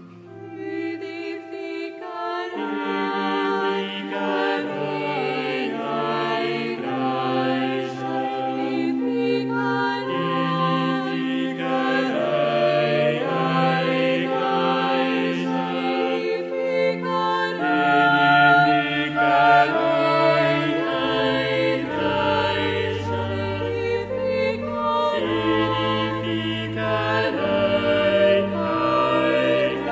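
Choir singing a slow sacred piece in long held chords. Past halfway it grows louder and deep bass notes join in.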